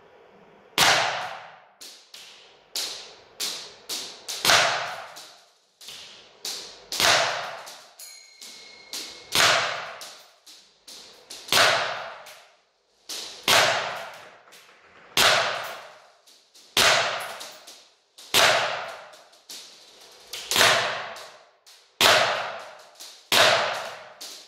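SIG Sauer ProForce P320 M17 full-metal green-gas blowback airsoft pistol firing BBs, shot after shot at about one a second. Each shot is a sharp crack with the slide's blowback, some louder than others.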